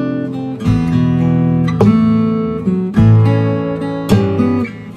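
Background music: acoustic guitar strumming chords, with a new strum about once a second.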